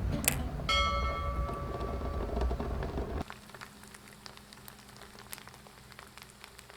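The end of the intro music, with a bell-like chime ringing out under it about a second in. The music cuts off suddenly about three seconds in, leaving faint scattered ticks over a low steady hum.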